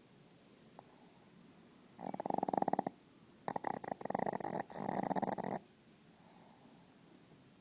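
Chihuahua snoring very loudly in its sleep: rattling snores start about two seconds in and a longer run lasts about two seconds, followed by a faint breath.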